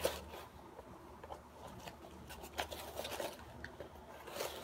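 Faint rustling and crinkling of packing material being handled and pulled out of an opened parcel, with scattered small clicks and taps.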